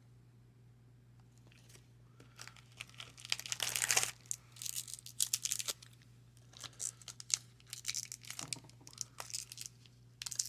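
Baseball card pack wrapper being torn open and crinkled by hand, in irregular bursts that begin about two seconds in.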